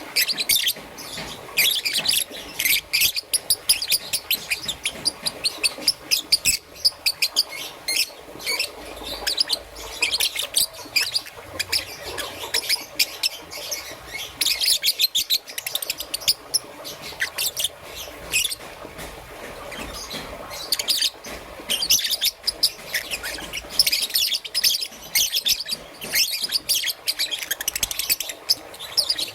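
Young peach-faced lovebird chirping: a rapid, continuous run of short, high chirps, several a second.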